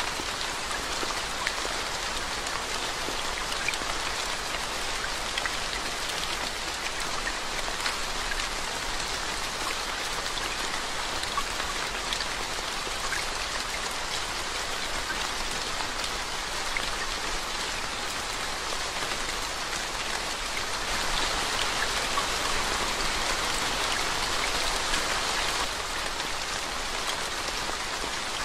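Steady rain falling onto a flooded road, drops splashing into the standing water, with scattered individual drop ticks. The rain grows a little heavier for a few seconds near the end, then eases back.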